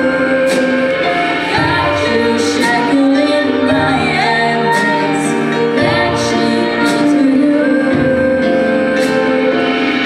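A young woman singing a pop song into a microphone, with a Yamaha keyboard accompanying her in held piano chords.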